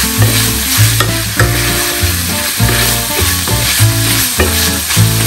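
Meat sizzling as it browns in a frying pan and is stirred, under background music with a steady bass line.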